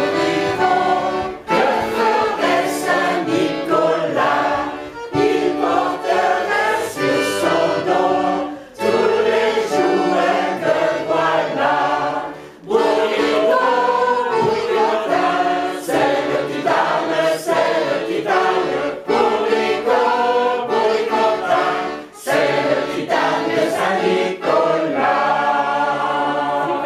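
A mixed amateur choir singing together in chorus, phrase after phrase, with short pauses between phrases.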